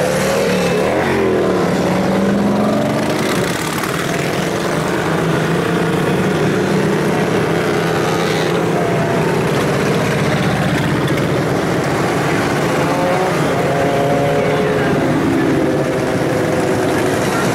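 Motorcycles riding past at parade pace, their engines running steadily. The engine pitch rises and falls as bikes go by, near the start and again later on.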